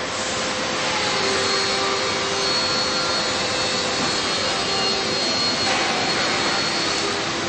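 Vacuum pump of a suction-cup lift-assist gripper running: a steady hiss with a faint high whine.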